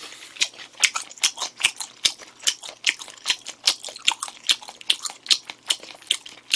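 Close-miked chewing of a mouthful of rice, with wet lip-smacking clicks in a steady rhythm of about two and a half a second.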